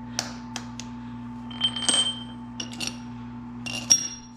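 Metal hand tools clinking and ringing while Allen keys are used on the fork clamp bolts: a few light taps, then sharp clinks with a short metallic ring about two seconds in and again near the end, the loudest near the end. A steady low hum runs underneath.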